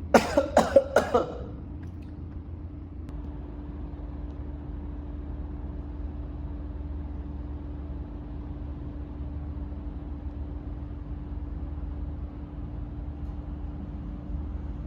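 A person coughing, a quick run of about five coughs at the start, followed by a steady low rumble with a faint hum.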